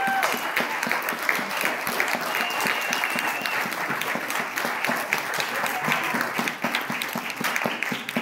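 Congregation applauding, the clapping easing slightly near the end.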